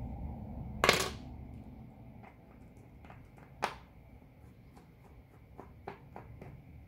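Tweezers and a small screwdriver clicking and tapping against the parts of an opened smartwatch during disassembly. A louder clatter comes about a second in, a sharp click a few seconds later, then a few faint ticks, over a faint steady hum.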